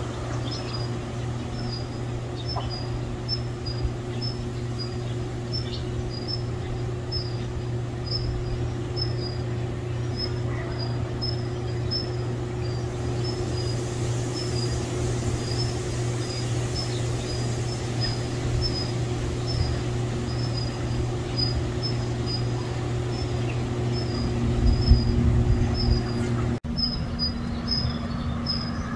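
Outdoor ambience: a high chirp repeated about twice a second over a steady low hum, with a brief break near the end.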